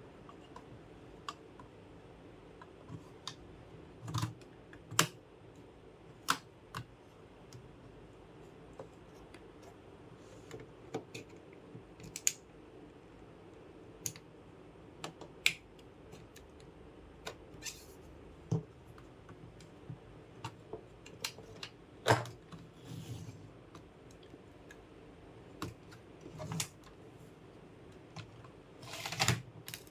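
Irregular clicks, taps and knocks of small hard computer parts being handled by hand, spaced a second or more apart, with a couple of short rustling scrapes.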